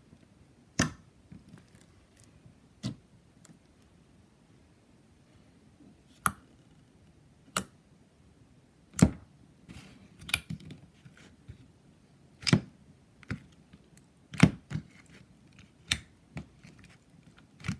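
Clear glue-based slime pressed and poked by hand, giving sharp, separate clicks and pops, about ten of them spaced a second or two apart.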